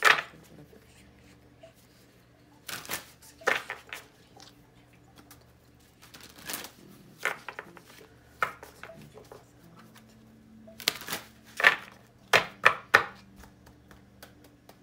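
A deck of large tarot cards being shuffled by hand, giving irregular snaps and slaps of card on card in short clusters, loudest in a quick run near the end.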